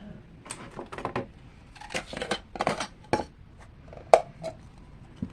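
Small plastic slime containers being handled and the tape peeled off them: a run of rustles and clicks, with one sharp click about four seconds in.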